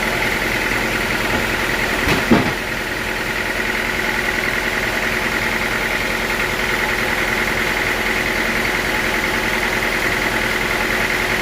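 Sawmill machinery running steadily with a constant humming whine, and a single short knock about two seconds in.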